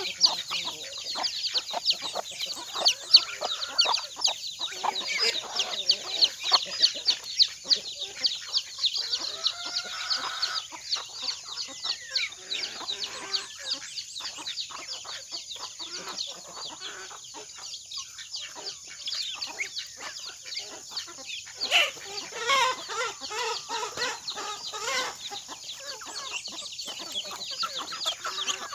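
Chickens clucking while dried corn is shelled off the cob by hand, giving a rapid, dry crackle of kernels breaking loose. The crackle is densest in the first third and thins out, and a louder flurry of calls comes about two-thirds of the way in.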